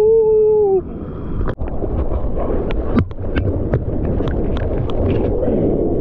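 A drawn-out whooping shout that falls slightly in pitch and stops under a second in, then sea water rushing and splashing around a bodyboard, with many sharp splashes, as the board is paddled into a breaking wave.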